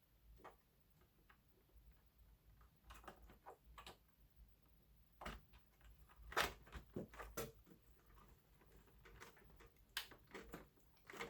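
Faint, scattered clicks and taps of a plastic 6-pin PCIe power connector being worked onto a graphics card's socket inside a desktop PC case. The clicks cluster in the middle, with the loudest about six seconds in.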